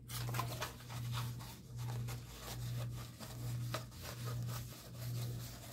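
Paper rustling and rubbing as a rolled print is handled, in scattered short scrapes. Under it runs a low hum that swells and fades a little more than once a second.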